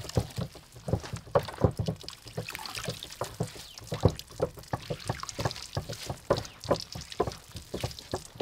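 Wet boiled instant noodles lifted by hand out of a pot of water and dropped into a plastic colander, with irregular splashing, dripping and wet slaps, several a second.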